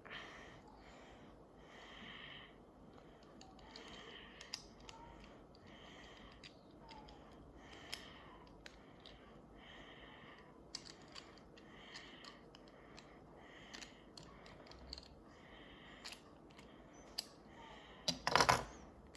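Small plastic building bricks being handled and fitted together: faint scattered clicks and taps, with a louder short clatter near the end.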